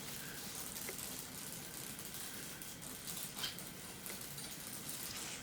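Room tone: a faint steady hiss, with a couple of soft clicks about one second and three and a half seconds in.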